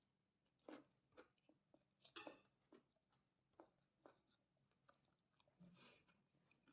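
Faint chewing of fried rice with kerupuk crackers: soft, irregular crunching bites, with one sharper crunch about two seconds in.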